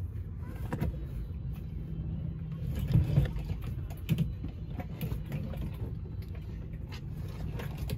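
A few small knocks and rattles from hands working plastic fuel pump module parts inside the fuel tank opening, over a steady low rumble.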